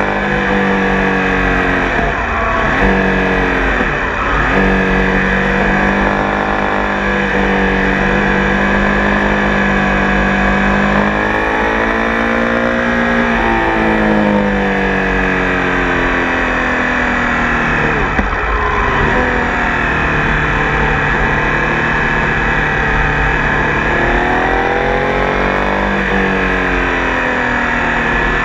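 Triumph Tiger Sport 800's three-cylinder engine running under way. The engine note rises and falls with the throttle and dips sharply several times, about two and four seconds in, midway and again near the end.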